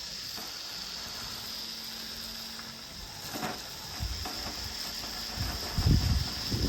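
Steady high hiss of a softwash hose nozzle spraying a stream of water. From about four seconds in, wind buffets the microphone in low gusts, strongest a little before the end.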